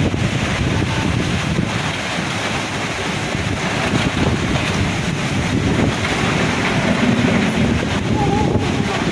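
Strong storm wind with rain: a steady, loud rushing noise, the gusts buffeting the microphone.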